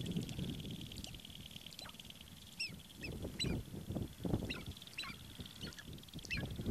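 Sharp-tailed grouse calling: a run of short, clipped calls from about two seconds in, with low muffled bursts underneath, over a steady high pulsing trill.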